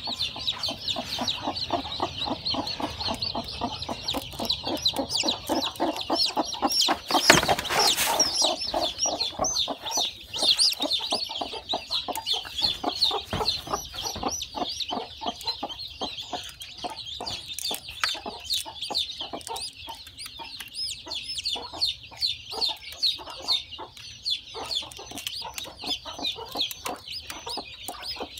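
Newly hatched chicks peeping rapidly and continuously at a high pitch, over the low, repeated clucking of the broody hen on the nest. One louder noise comes about seven seconds in.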